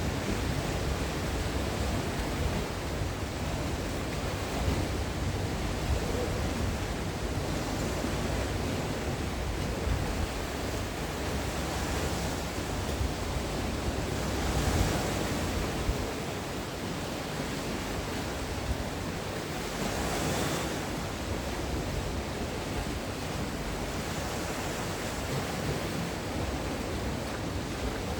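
Sea waves breaking against the shore: a continuous wash of surf, swelling louder about halfway through and again about two-thirds through as larger waves break.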